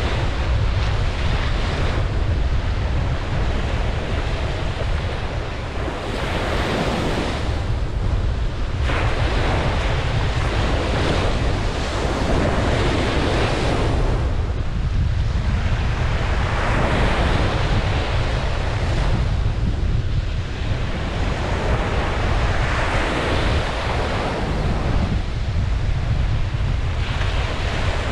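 Ocean waves breaking and washing up a beach, the surf swelling and receding every few seconds over a steady low rumble, with wind buffeting the microphone.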